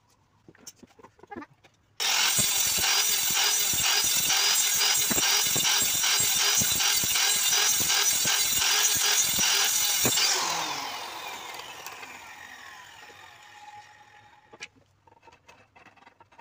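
Handheld electric circular saw switched on about two seconds in, running loud and steady as it cuts through a wooden strip. It is switched off about ten seconds in, and its motor and blade whine falls in pitch as it spins down to a stop.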